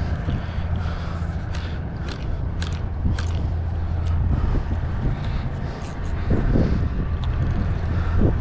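Steady low wind rumble buffeting the microphone, with scattered small clicks and light scrapes over it.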